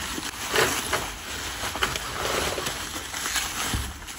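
Foam packing peanuts and plastic bubble wrap rustling and crunching as gloved hands dig through a cardboard box, with scattered small clicks.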